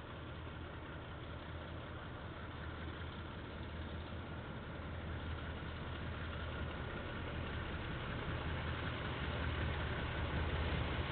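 KiwiRail diesel locomotive engine running with a low, steady hum, growing steadily louder as the train approaches.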